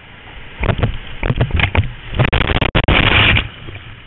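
Whitewater rushing past a kayak, with a run of loud, irregular splashes from about half a second in to near the end as the boat punches through the foaming rapid and water crashes over the bow and camera.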